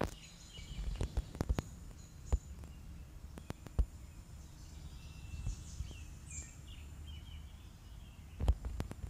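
Outdoor background of small birds chirping faintly over a steady low rumble, with scattered bumps and clicks from a handheld camera being moved. The bumps come a little after a second in and again near the end, where they are loudest.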